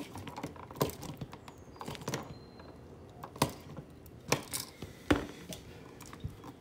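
A hand screwdriver working the brass terminal screw of an electrical receptacle wired with aluminum wire: a handful of separate clicks and knocks, about one a second, as the screw is tightened down and the receptacle and wires are handled.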